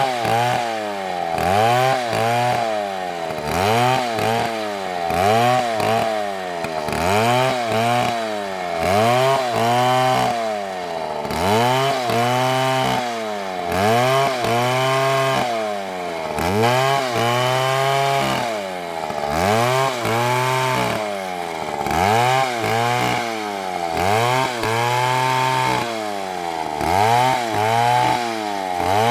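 A big Stihl MS720 chainsaw cutting into a large tree. Its engine pitch rises and falls over and over, about once every second and a half, as the saw works through the wood.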